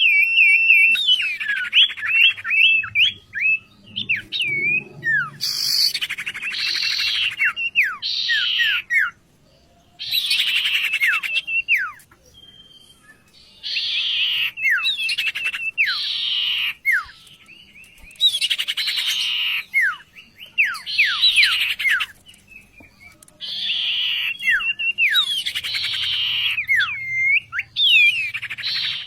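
A sirtu songbird, kept as a vocal tutor for other songbirds, singing in phrases of quick falling whistles mixed with buzzy notes, with short pauses between phrases.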